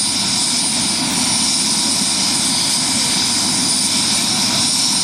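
Helicopter running close by: a steady, loud rush of rotor and engine noise with high, steady whining tones.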